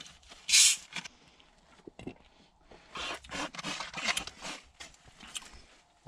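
Plastic bottle of carbonated Coca-Cola twisted open, the gas escaping in one short hiss about half a second in. Scattered rustling and scraping of handling follow from about three seconds in.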